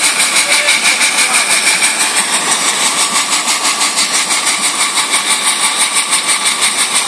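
A motor running steadily with a fast, even pulsing beat.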